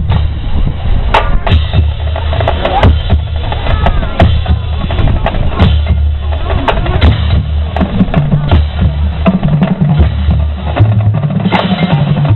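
A band playing: drums hitting over a bass part of held low notes that change every second or so.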